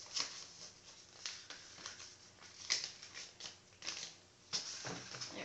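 Paper rustling and handling: irregular short scuffs and crinkles, as a letter is picked up and handled.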